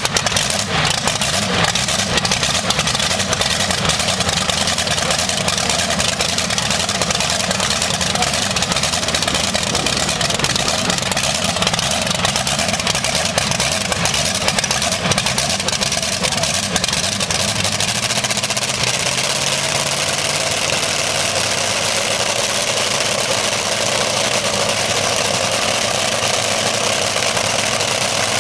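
V8 engine of a modified-class pulling tractor idling loudly and steadily on open exhaust. About two-thirds through, its tone rises slightly.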